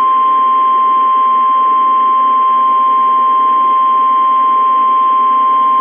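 NOAA Weather Radio's 1050 Hz warning alarm tone, one steady unbroken tone over radio hiss, sounding to signal that a warning (here a severe thunderstorm warning) is about to be broadcast.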